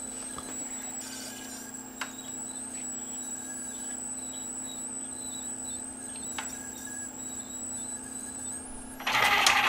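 Steady low electrical hum under a thin, high-pitched whine, with two light clicks. About nine seconds in, a much louder, noisy burst of sound comes in.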